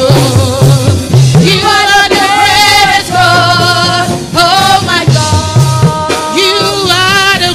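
Live gospel praise music: a lead melody of long held, wavering notes with upward scoops, over a repeating bass line and drums.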